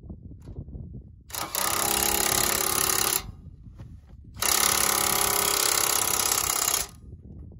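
Makita DTW1001 18V brushless 3/4-inch-drive impact wrench hammering as it tightens a cutting-edge bolt. It runs in two bursts of about two seconds each, with a short pause between.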